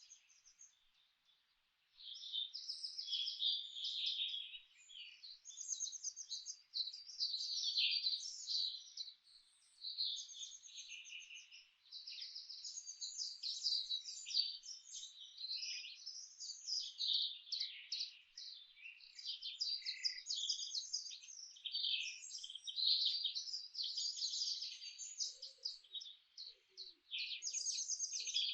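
Several songbirds chirping and singing in rapid high trills and twitters, many calls overlapping almost without pause after a brief lull at the start. A faint low call joins in near the end.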